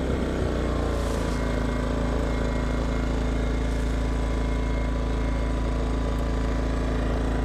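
Westinghouse iGen2500 inverter generator's small four-stroke engine running steadily. Its note drops slightly in the first second as the efficiency mode throttles it back, then holds at a steady hum.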